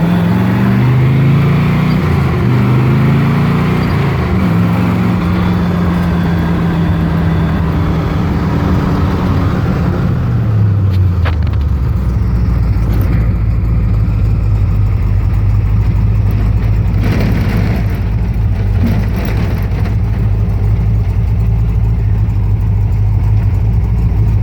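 1967 Corvette's V8 engine pulling through the gears, its pitch climbing and dropping back at each shift, then holding steady. About ten seconds in it winds down and settles into a steady low run.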